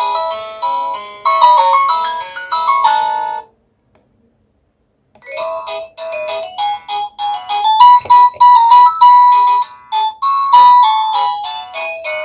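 Cacazi HYA10 wireless doorbell receiver playing its electronic ringtone melodies. One tune ends about three seconds in, and after a silence of under two seconds the next ringtone begins.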